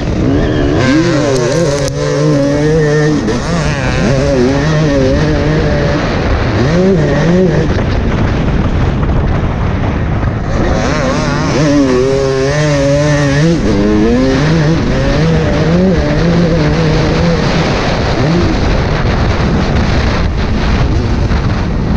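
Two-stroke motocross bike engine heard from on board, running hard with revs climbing and dropping in quick swings as the rider works the throttle and gears, most sharply about a second in and again about eleven seconds in.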